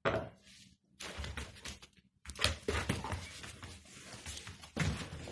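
Hungarian vizsla playing with a ball on carpet: an irregular run of thumps, knocks and scuffs as the ball is pawed and mouthed.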